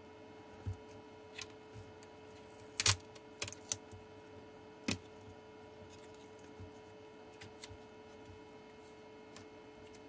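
Scattered light clicks and taps from hands handling and repositioning a small battery pack of cylindrical lithium-ion cells on a workbench. A few louder knocks come about three to five seconds in, over a faint steady electrical hum.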